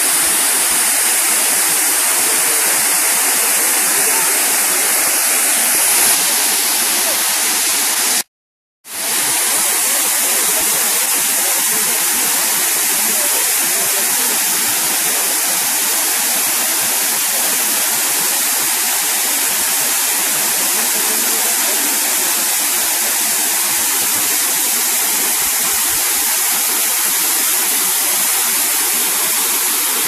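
Waterfall pouring into a rock pool: a steady rush of falling water. The sound cuts out completely for about half a second some eight seconds in, then returns unchanged.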